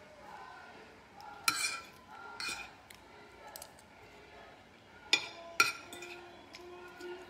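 Eating utensils clinking against a bowl while eating, four sharp clinks with short ringing, two near the start and two close together about two thirds of the way in.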